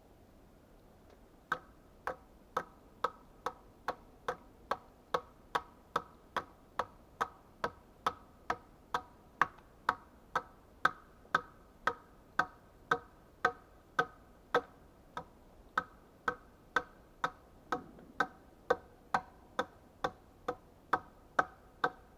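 A steady series of sharp knocks on wood, about two a second, each with a short ringing tone: repeated tool blows on wood while shaping bench parts. The knocks begin about a second and a half in.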